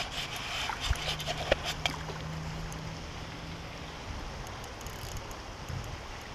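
Low rumble of wind buffeting the camera microphone, with a few light clicks in the first two seconds and a faint steady hum from about one to four seconds in.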